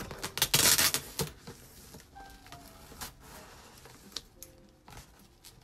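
Scissors slitting packing tape on a cardboard shipping box: a loud ripping scrape about half a second in, lasting about half a second. It is followed by a few sharp clicks and softer scrapes of tape and cardboard.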